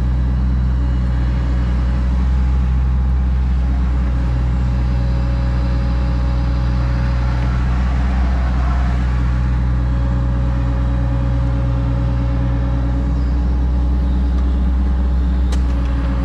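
Excavator's diesel engine running steadily at a constant speed.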